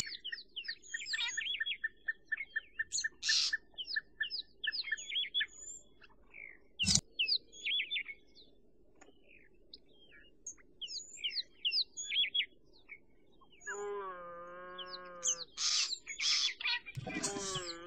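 Small birds chirping and calling throughout, with a sharp click at the start and another about 7 s in. About 14 s in comes a drawn-out, wavering bleat, and near the end a second, falling cry: a Thomson's gazelle fawn bleating as the cheetahs chase it.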